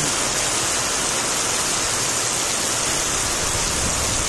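Heavy rain pouring down onto wet ground and puddles, a steady hiss.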